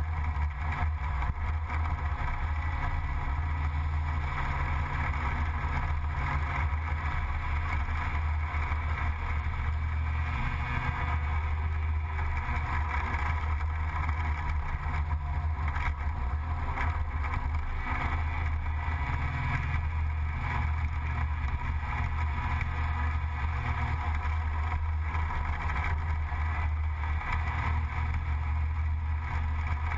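Gilera Runner 180 scooter's single-cylinder engine running steadily while riding at road speed, with wind rushing over the onboard microphone. The engine note shifts a little with the throttle now and then but stays a continuous drone.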